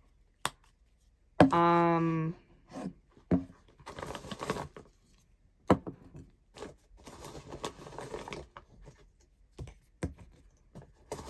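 Plastic Curology skincare bottles and a tube being handled and set down on a surface: scattered light knocks and clicks with soft rustling between them. A short hummed voice sound comes about one and a half seconds in.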